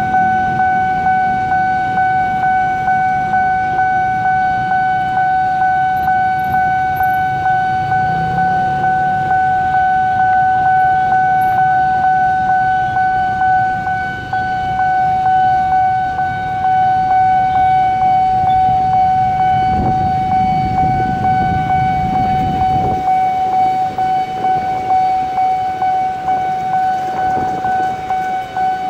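Railway level-crossing warning alarm sounding a steady electronic tone that pulses rapidly, the signal that the crossing is closing for an approaching train.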